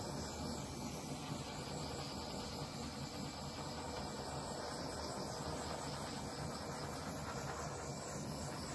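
Small handheld butane torch burning with a steady hiss as it is swept over freshly poured epoxy resin to clear surface bubbles.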